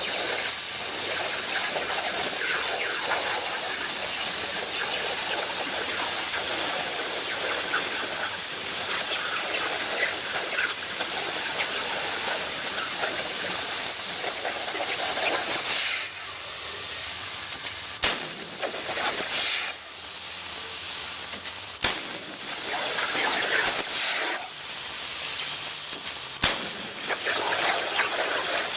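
CNC plasma cutter cutting over a water table: a steady hiss of the plasma arc and air. In the second half the hiss drops out briefly several times, with a few sharp clicks.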